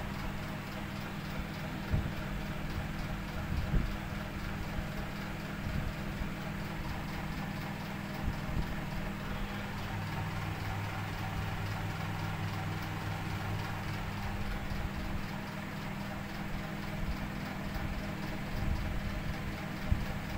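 Workbench room tone: a steady low hum, with a few light knocks and clicks of handling.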